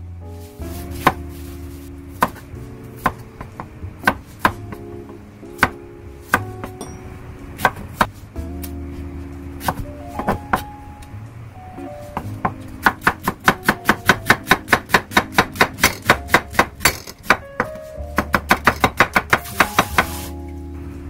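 Kitchen knife cutting an onion on a wooden cutting board: scattered single chops at first, then quick runs of about four cuts a second as the onion is sliced thin.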